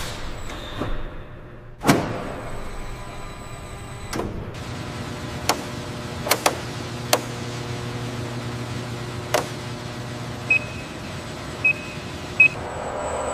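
An electric servo motor whirring steadily, with a sharp clunk about two seconds in and several mechanical clicks. Three short electronic beeps sound near the end.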